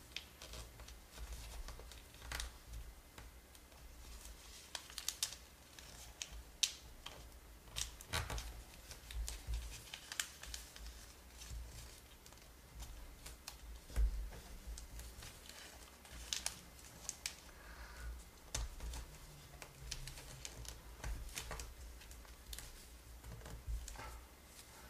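Origami paper being folded and creased by hand: faint, irregular crinkles, clicks and scrapes as the corners of a thick, many-layered square are pressed flat, with occasional soft thumps against the table.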